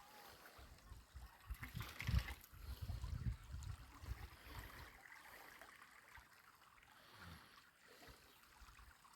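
Faint running water, a small stream or trickle, with low rumbling bumps on the microphone, strongest about two seconds in.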